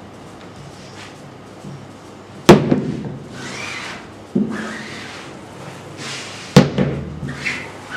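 Screen-printing squeegee scraping ink across the mesh of a wooden screen frame on fabric. Two sharp wooden knocks about four seconds apart, and a lighter one between them, as the frame and squeegee strike the table.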